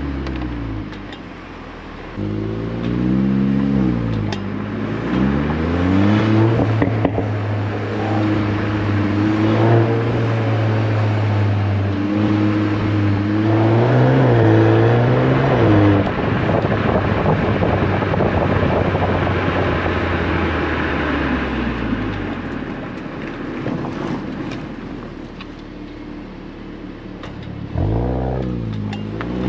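VW Golf 8 R's turbocharged four-cylinder heard through its Akrapovic exhaust, pulling through the gears: the engine note climbs and drops back several times, then holds steady. About halfway through the throttle lifts, a rushing noise takes over and the engine note winds down. It picks up and rises again near the end.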